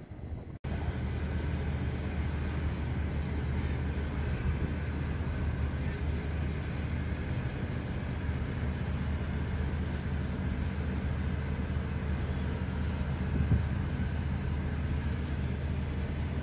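River cruise ship's engines running with a steady low hum, heard on the open deck while under way.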